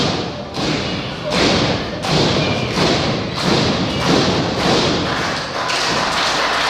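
Repeated heavy thuds on a wrestling ring's canvas, about one and a half a second and evenly spaced, as a wrestler stomps an opponent down in the corner.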